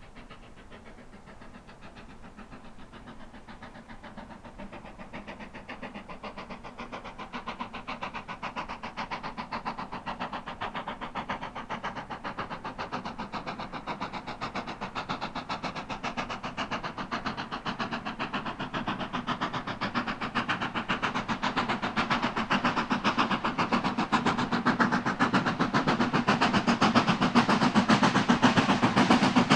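Steam-hauled train approaching, growing steadily louder throughout, with a fast, even beat from the locomotive and its wheels on the rails.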